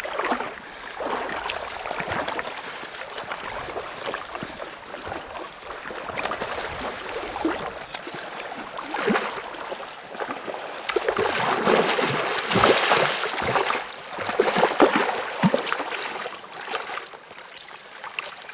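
Hooked coho salmon thrashing and splashing at the surface of a river while being played on a line, over the gurgle of running water. The splashing comes in irregular bursts and is loudest a little past the middle.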